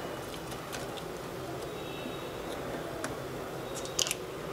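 Faint clicks and taps of a smartphone's circuit board and housing being handled on a repair mat, with a sharper cluster of clicks about four seconds in, over a steady low hum.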